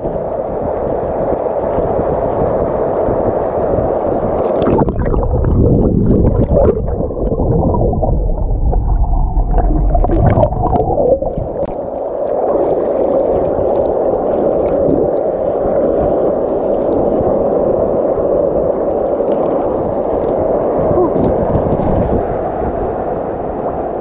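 Waterfall rushing close by as a steady loud rush of water, with heavy low rumbling from about five to eleven seconds in.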